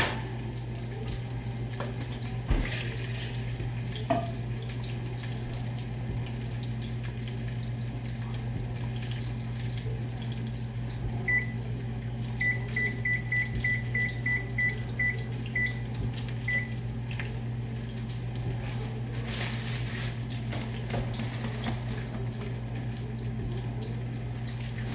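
A run of about a dozen short electronic kitchen-appliance beeps, all on one pitch, most of them quick and evenly spaced, over a steady low hum; a couple of light knocks sound in the first few seconds.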